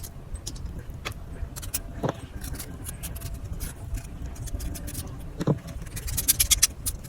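Knife working on a pumpkin: a scatter of short scrapes and taps, denser near the end, with a couple of duller thuds, over a steady low hum.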